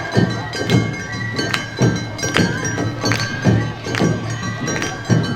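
Awa Odori festival band music: drums and a ringing hand gong struck on a steady beat, with sustained high tones over it.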